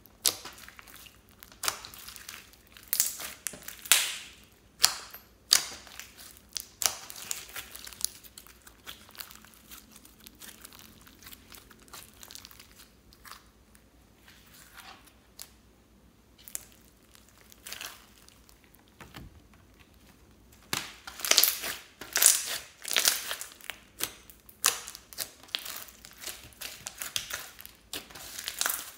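Glossy slime mixed with foam beads being squeezed, folded and stretched by hand, giving clusters of short sharp crackles and pops. The crackles are sparse through the middle and come thick and fast in the last several seconds.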